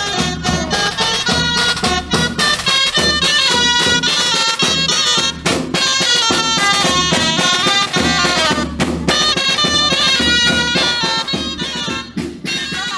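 Lively folk music: a fast melody on a reedy wind instrument over a drum beat, with brief breaks in the melody about five and nine seconds in.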